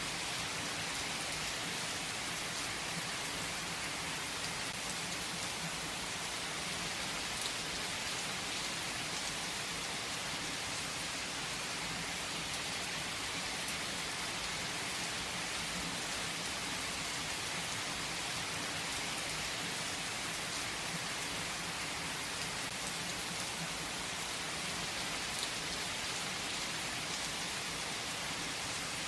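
Heavy rain falling steadily on a tree's leaves: an even, unbroken hiss with the odd distinct drop.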